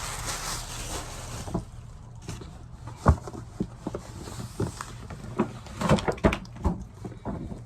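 A present being unwrapped by hand: rustling packaging for the first second or so, then irregular knocks and clicks as it is handled, the loudest about three seconds in.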